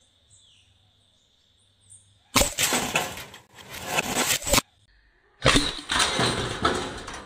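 Two stretches of loud rustling, scraping noise, each about two seconds long, separated by a second of total silence.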